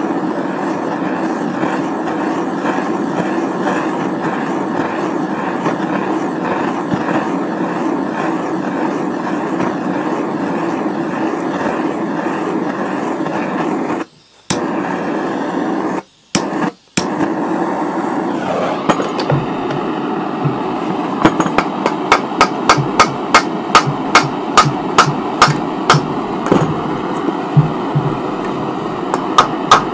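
Gas blowtorch flame hissing steadily as it heats the aluminium crankcase around the crankshaft bearing, broken by two brief gaps. About two-thirds of the way in it gives way to sharp, regular knocks, about three every two seconds, as the crankcase is struck with a wooden block to drive the crankshaft out.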